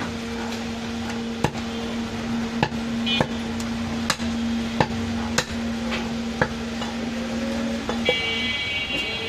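A heavy cleaver chops mutton on a wooden log chopping block, with sharp single strokes roughly once a second and a steady low hum behind them. About 8 seconds in, a high tone starts.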